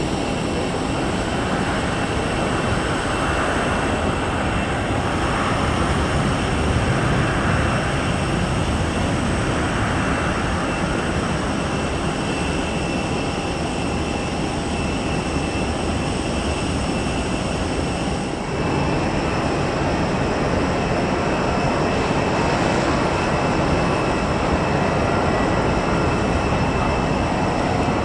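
Jet engines of an Airbus A320-232 (IAE V2500 turbofans) running steadily as the airliner rolls out and slows down after landing.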